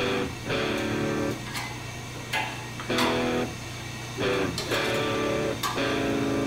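Background music: strummed guitar chords repeating in a steady rhythm.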